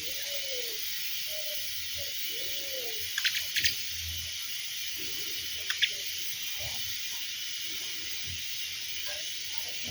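Birds calling. Low, arching notes come in the first three seconds, then two brief bursts of sharp high chirps about three and six seconds in, over a steady high hiss.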